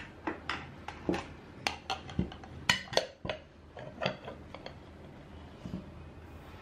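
Stainless steel cake tin clinking and knocking against ceramic plates as a baked flan is turned out of it. The knocks come irregularly, a dozen or so sharp clinks.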